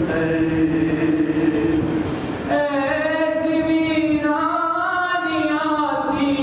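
A man chanting a recitation into a microphone, drawing out long held notes that waver in pitch.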